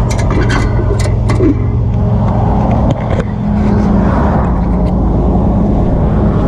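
Rollback tow truck's engine idling with a steady low hum. Several sharp clicks come in the first second and a half, and a vehicle passes close by about four seconds in.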